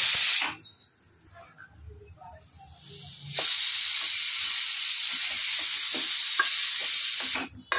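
Pressure cooker venting steam: a loud, steady hiss that stops about half a second in, then starts again abruptly about three seconds later and runs for about four seconds before cutting off.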